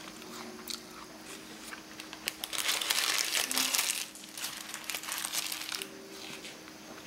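Paper tissue being crumpled in the hand: a burst of crinkling from about two to four seconds in, then scattered crackles that die away.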